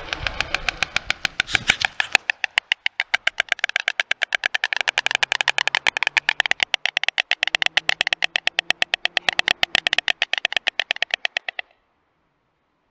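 White stork bill-clattering: a rapid, even run of bill claps, about ten a second, that cuts off suddenly near the end. It is the greeting display of a stork pair as one bird returns to the nest. A rushing noise lies under the first couple of seconds.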